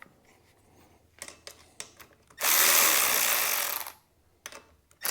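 A handheld power tool runs in one burst of about a second and a half midway through, with light clicks and knocks of tools and metal parts before and after it.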